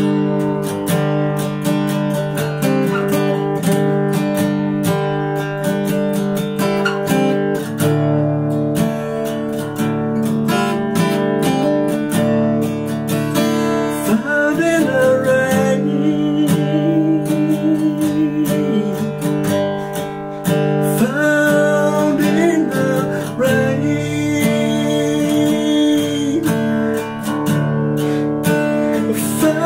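Acoustic guitar strummed in a steady rhythm, playing chords alone at first; a singing voice comes in over the guitar about halfway through.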